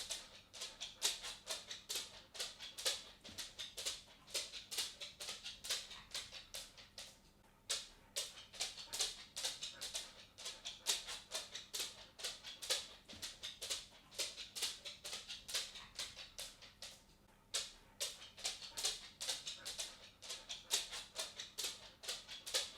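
A cat's footsteps: quick, light, irregular clicks and taps, several a second, pausing briefly twice.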